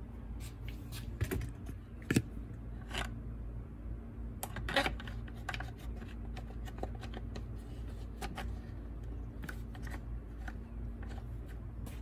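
Scattered light clicks and knocks as the air cleaner cover of a cut-off saw is handled and seated on the saw, with the sharpest knock about two seconds in. A steady low hum runs underneath.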